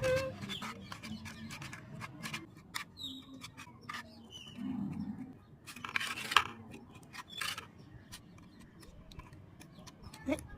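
Scattered light clicks, taps and short scrapes of hand work on a wooden bat, with a sharper knock about six seconds in.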